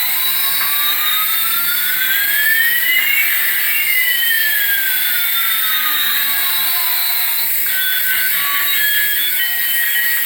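Two electronic tones gliding in opposite directions, one rising and one falling, crossing about three seconds in and fading out well before the end, over a steady high hiss.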